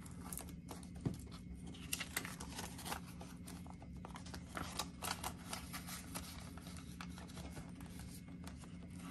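Paper banknotes rustling and being slid into a clear plastic binder pocket, with many small crinkles and light clicks as the bills and plastic sleeve are handled.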